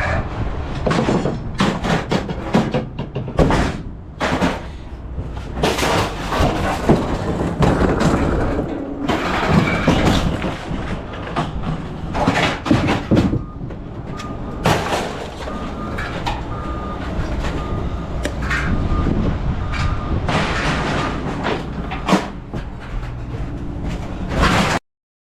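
Scrap metal clanking and crashing as it is thrown out of a pickup truck's bed onto a scrapyard pile, over a steady low rumble of machinery and a repeating high beep partway through.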